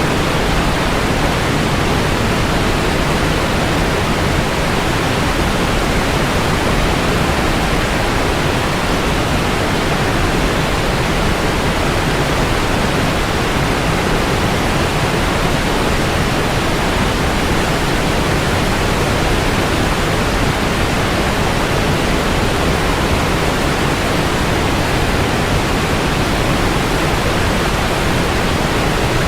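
Niagara Falls: the steady, unbroken rush of a large volume of falling water, a dense even noise with no change over time.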